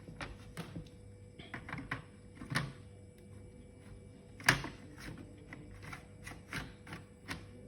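Irregular sharp clicks and knocks of small hard laptop parts being handled and pushed into place in an ASUS X451CA during a drive upgrade, the loudest knock about four and a half seconds in.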